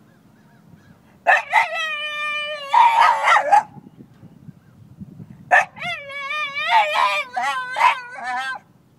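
A dog crying in two long, high howls, the second wavering up and down in pitch, which sounds like a baby crying.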